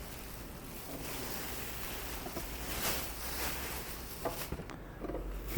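Soft rustling of fabric as dresses are handled, with a few faint clicks.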